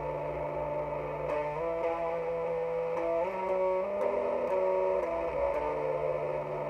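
Electric guitar, a Jackson X Series SCX 3H played through an Orange Crush Mini 3-watt amp boosted by a Boss ODB-3, playing a slow doom metal riff. Sustained chords ring and change every second or so, with a few quicker changes in the middle.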